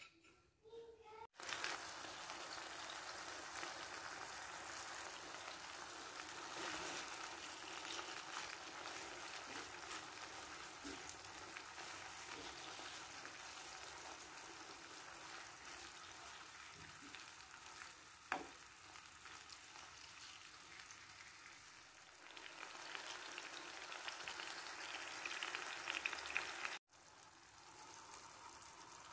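Tomato slices frying in olive oil in a frying pan: a steady sizzle with fine crackling. It is briefly louder a few seconds before the end and quieter after a cut near the end. At the very start a fork briefly beats eggs in a glass bowl.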